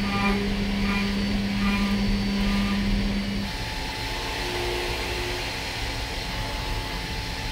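DN Solutions DVF 5000 five-axis CNC mill cutting 1018 steel with a 3/4-inch end mill at 3565 rpm, taking light 0.005-inch passes on the part's holding tab. A steady cutting tone stops about three and a half seconds in, leaving the machine's steady running hum.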